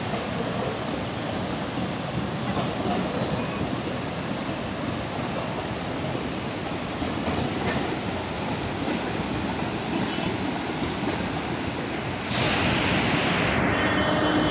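Water pouring over the steps of a concrete overflow weir, a steady rushing. About twelve seconds in it turns suddenly louder and hissier.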